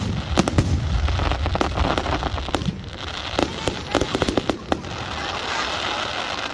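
Aerial fireworks going off in rapid succession: many sharp bangs and pops over low booms for the first few seconds, then a dense crackling hiss toward the end.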